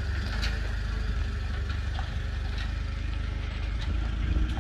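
Old Chevrolet pickup's straight-six engine running at a steady idle, a low, even throb with a few light ticks over it.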